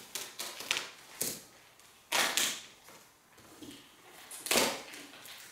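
Shipping wrap around a cardboard box being cut and torn open: a series of short scraping, ripping noises, the loudest about two seconds in and another about four and a half seconds in.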